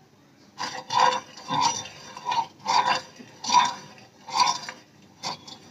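Metal spoon scraping across a nonstick tawa, spreading melted ghee in repeated short strokes, about one a second.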